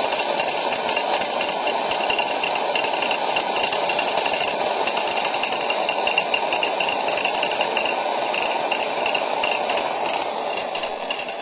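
Coleman 625A pressure lantern running with a fast, steady rattle over a hiss. The generator rod has play where it clips onto a worn eccentric inside the valve assembly, and the pressure makes it rattle.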